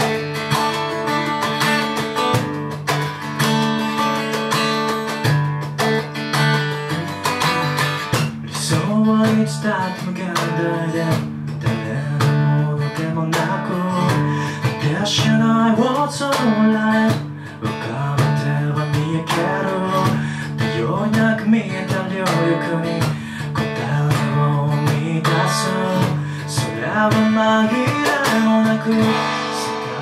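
Steel-string acoustic guitar strummed and picked in a live solo performance, with a man singing at the microphone over it.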